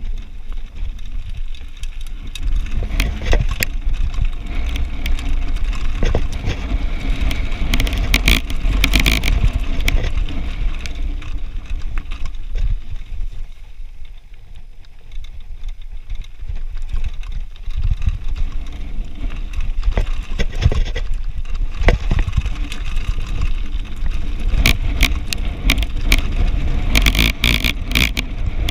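Mountain bike riding down a loose gravel trail: wind rumbling on the camera's microphone, tyres crunching over stones and the bike rattling, with dense bursts of clicking about a third of the way in and near the end. It eases off for a few seconds just before the middle.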